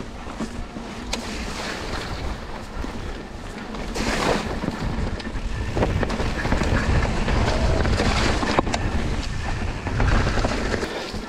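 Wind rumbling on a GoPro action camera's microphone while riding a mountain bike over a trail, with tyre noise and scattered clicks and rattles from the bike; it gets louder about four seconds in and again in the second half.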